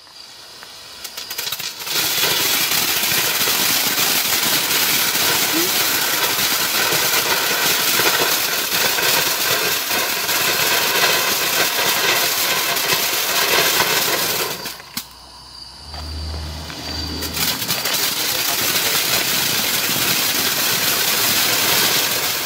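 Ground firework battery of 25 mm fountain tubes spewing red stars with a loud, steady hiss. It starts quieter, swells about two seconds in, and dips briefly about fifteen seconds in before the next tubes take over.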